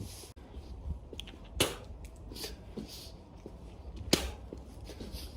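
Two sharp clicks, about two and a half seconds apart, over a steady low rumble, with a few short soft hissy sounds between them.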